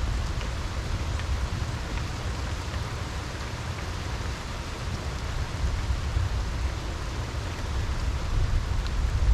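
Steady rain falling, a continuous hiss with scattered drop ticks over a deep low rumble that swells slightly near the end, likely wind or distant thunder.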